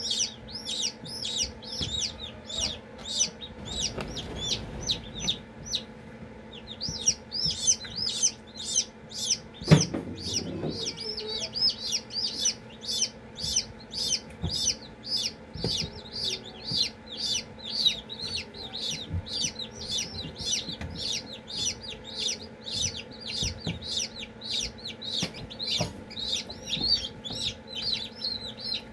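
Newly hatched chicks peeping continuously, a rapid run of short high peeps at about three a second with a brief pause around five seconds in. A single knock sounds about ten seconds in, over a steady low hum.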